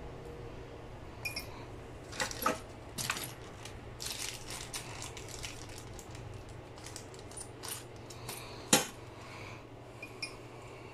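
Small metal parts clinking and rattling as spare soldering-iron tips are searched through: scattered light clicks, with one sharper click about nine seconds in, over a steady low hum.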